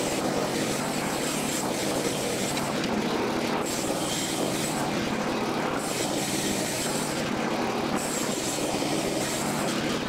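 Wood-Mizer LX55 portable bandsaw sawmill cutting lumber: its gasoline engine runs under load while the band blade saws through the log, a steady dense running noise.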